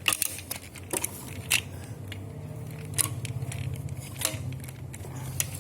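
Scattered sharp clicks and taps of a plastic transforming toy robot being handled and folded, a few a second apart, over a low steady hum.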